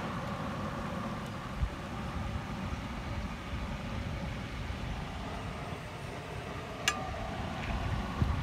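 Whole baby brinjals deep-frying in groundnut oil in a wide metal pan: a steady sizzle of bubbling oil over a low rumble, with one sharp clink of the steel ladle against the pan about seven seconds in.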